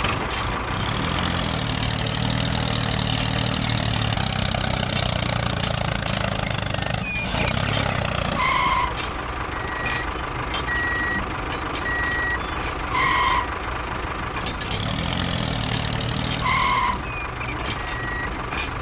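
A vehicle engine running steadily, then from about eight seconds in a reversing alarm beeping repeatedly over it, with short high beeps and a louder two-tone beep every few seconds.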